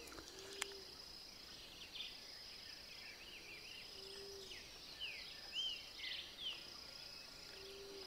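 Faint outdoor ambience: a steady high-pitched insect drone, with birds chirping in short rising and falling calls through the middle and later part.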